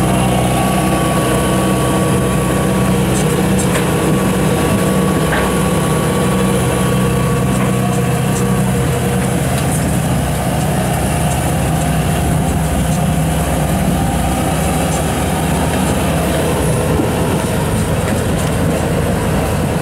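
Diesel engine of a Kubota 105X tracked rice combine harvester, fitted with a Hyundai turbocharger, running steadily under light load as the machine crawls onto a ferry barge. A thin high whistle sits over it until about eight seconds in, and a couple of sharp knocks come a few seconds in.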